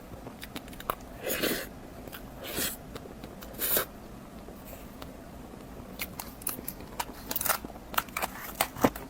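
Close-miked eating: bites and chewing with sharp clicking mouth sounds. Three louder bites come in the first four seconds, then a quick run of clicks near the end.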